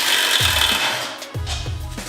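Background music with a steady beat and deep bass notes that slide down in pitch. A harsh rasping hiss sits over it for the first second or so, then stops.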